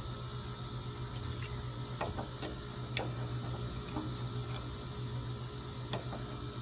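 A few faint sharp clicks of mesh stuffing being worked into a brick weep hole and trimmed with hand snips, over a steady low hum.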